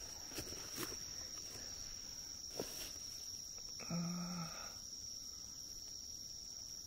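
Night insects singing a steady, faint, high-pitched trill, with a few light clicks of footsteps or brushing through plants and a short low hum of a voice about four seconds in.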